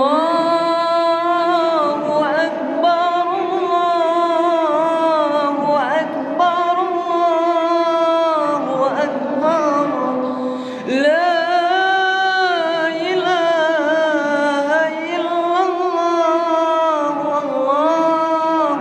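A single voice chanting long, wavering, ornamented melismatic phrases, in the style of Islamic devotional chant heard before dawn in Ramadan. It is unaccompanied, with short breaks between phrases.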